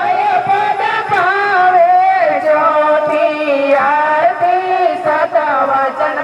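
Gujarati devotional santvani music: a sung melody over instrumental accompaniment, with drum strikes now and then.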